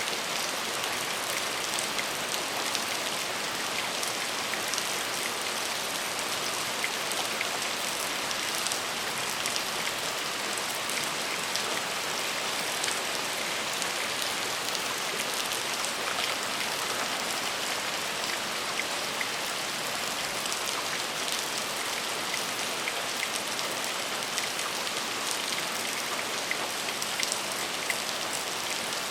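Steady rain falling, an even hiss with many small drop ticks and patters on a hard surface, with no change in intensity.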